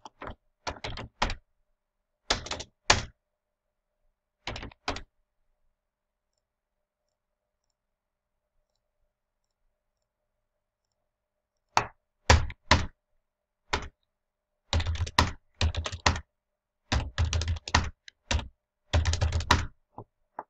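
Computer keyboard typing in short bursts of keystrokes, with a silent gap of about seven seconds in the middle.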